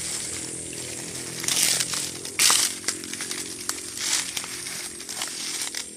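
Leaves and branches rustling in short swishes, a few times, as someone pushes through dense forest undergrowth, over a steady droning hum.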